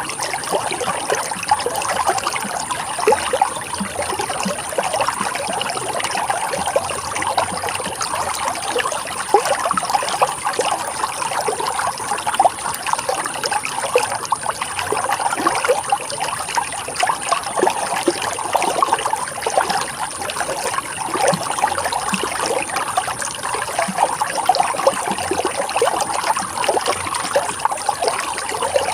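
River water running and trickling steadily, a dense, even wash of small splashes and bubbling.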